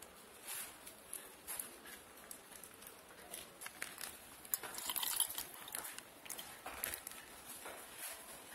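Faint crinkling of a plastic parcel bag and soft splattering as thick kurma gravy is poured from it into a steel bowl. The sound is loudest about five seconds in.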